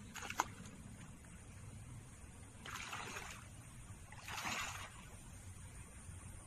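Water sloshing and splashing as a person wades knee-deep through a pond, in two louder swells about three and four and a half seconds in, with a short sharp click just after the start.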